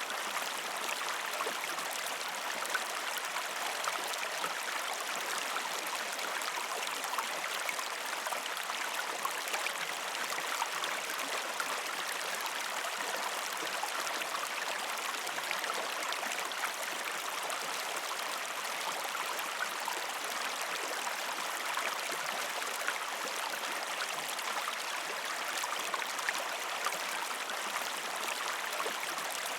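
Shallow river stream flowing and splashing over rocks: a steady rush of water with fine, scattered splashes and gurgles.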